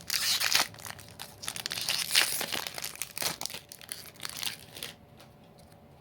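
Crinkly booster-pack wrapper being torn open and crumpled by hand, in irregular loud rustles and snaps that stop about five seconds in.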